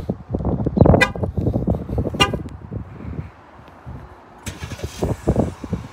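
Two short horn chirps from a 2021 Jeep Grand Cherokee, about a second apart, as its key fob is used for remote start. About four and a half seconds in, a steady running noise sets in as the engine starts and runs.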